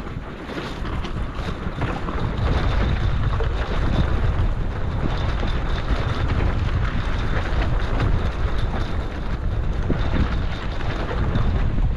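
Wind buffeting the microphone with a heavy rumble, over the steady rush and slap of choppy lake water against a Sunfish sailboat's hull.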